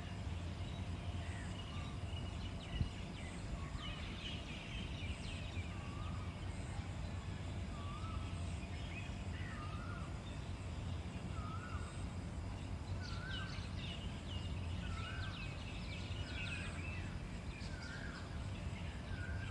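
Birds calling in the early morning: one bird repeats a short rising call about once a second while others chirp higher, over a steady low rumble of background noise.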